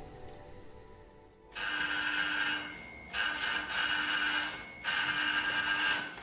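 An electronic ringer sounding three times, each ring a long steady tone of a second and a half, coming about every 1.6 s after a short quiet start.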